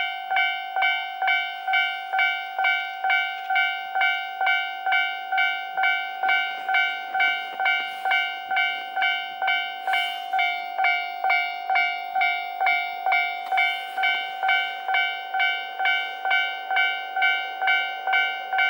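Japanese railway level-crossing warning bell ringing steadily, a clear metallic ding repeating about twice a second, each stroke decaying before the next.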